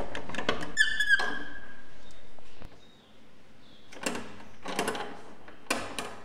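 Metal door latch and bolt being worked by hand: clinks and scrapes, with a short squeak about a second in.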